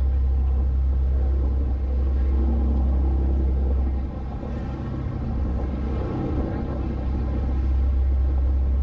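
Steady low drone of a fishing boat's engine while the boat is under way, dipping briefly about four seconds in.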